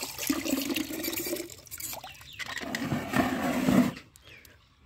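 A thin stream of water pouring and splashing into a plastic tub of water over a hand being rinsed; it cuts off about four seconds in.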